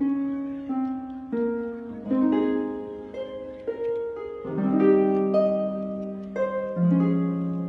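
Background music of plucked strings in a harp-like style: a slow melody of notes that ring and fade, with several notes often sounding together as chords.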